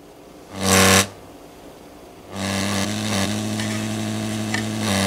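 Montgomery Ward Airline 74WG-1510A tube radio's speaker putting out loud hum with hiss: a short burst about half a second in, then a steady hum from a little after two seconds in, a touch louder near the end. The hum is the radio's fault, a noise that rises and falls with the volume control.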